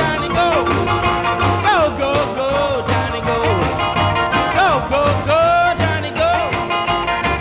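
A recorded song played from cassette on a Technics RS-M205 cassette deck, captured straight from the deck's output. It has a steady bass beat and a melody of sliding notes over it.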